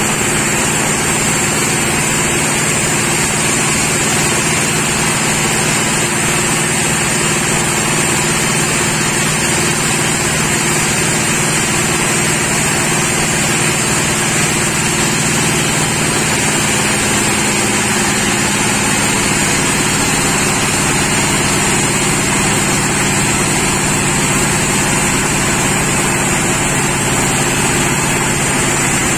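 Sawmill machinery running steadily: a constant engine note with a steady high whine over it. The engine note shifts slightly a little past halfway through.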